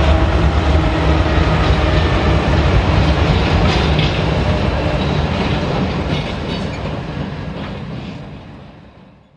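Diesel freight locomotives rolling past with a loud, steady rumble and engine drone, and a few sharp clicks of wheels over the rail joints. The sound fades away near the end.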